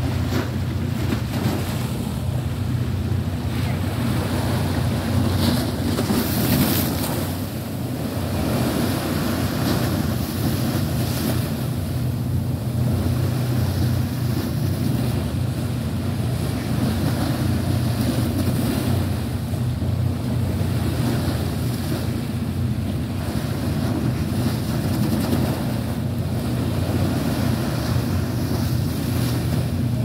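Strong wind buffeting the microphone over choppy sea water washing against a concrete seawall, with a steady low hum underneath and a stronger gust about six seconds in.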